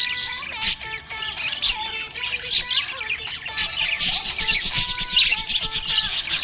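Small pet parrots chirping and squawking busily, with many quick chirps overlapping throughout.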